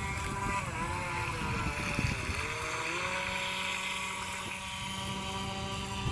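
Small electric motor of an FT009 RC racing boat whining, its pitch dipping and rising as the throttle changes over the first three seconds, then holding steady.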